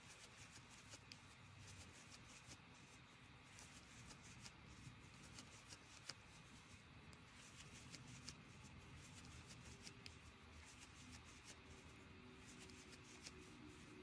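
Very faint rustling and small irregular ticks of a crochet hook pulling acrylic yarn through stitches, over quiet room tone.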